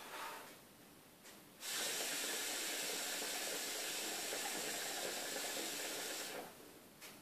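Kaya PNG550 hookah being drawn on through the hose for about five seconds: a steady hiss of air pulled through with water bubbling in the base, starting about two seconds in and stopping near the end.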